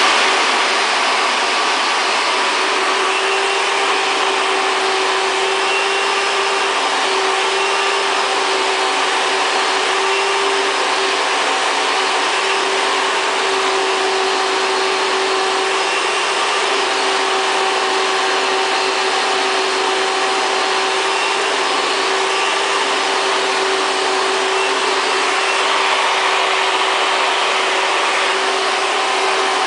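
Vacuum cleaner running steadily: an even rush of air with a constant motor whine, its brush nozzle being drawn over a cat's fur.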